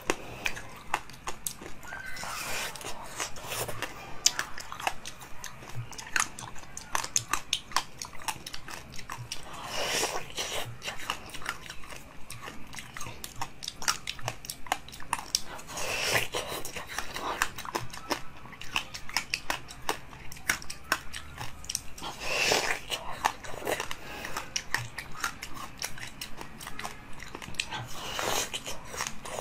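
A person biting into a large round frozen fruit and chewing it crunchily, with many small crackles between bites. A bigger bite comes about every six seconds.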